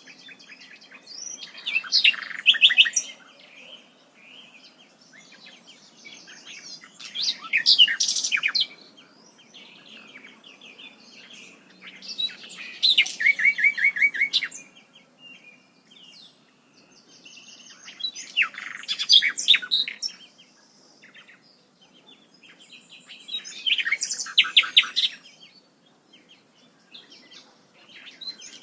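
A songbird singing loud phrases of rapid, high, chirping notes, five phrases in all, one about every five to six seconds, with short pauses between.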